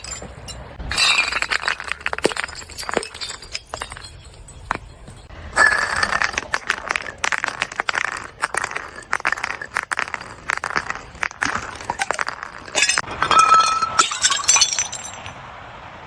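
Glass bottles breaking: several loud shattering breaks, each followed by shards clinking and crunching.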